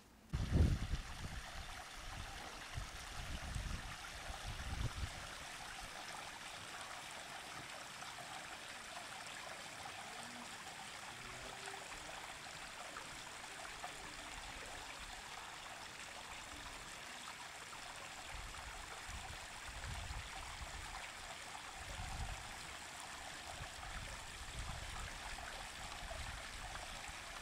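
Water trickling and splashing steadily down a stone rockery cascade into a garden fish pond, with low rumbles and bumps near the start and again toward the end.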